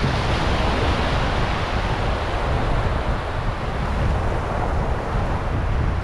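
Wind buffeting the microphone over a steady rush of sea water and waves.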